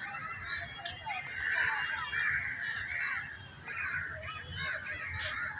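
Many birds calling over one another in a dense, unbroken chorus of short chattering calls.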